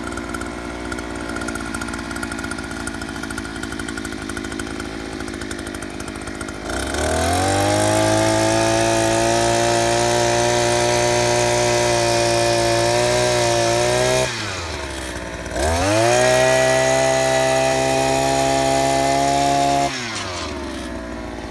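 Small engine of a gas-powered earth auger idling, then run up to full throttle for about seven seconds while it bores a post hole in hard, sandy ground. It drops back to idle for a moment, revs up again for about four seconds, and settles back to idle near the end.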